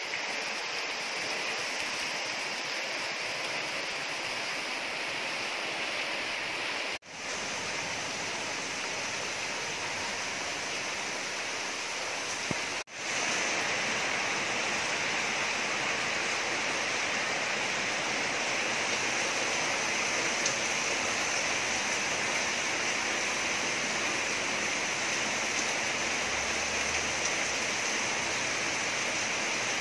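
Steady rain falling on foliage, an even hiss. It breaks off briefly twice, about seven and thirteen seconds in, and is a little louder after the second break.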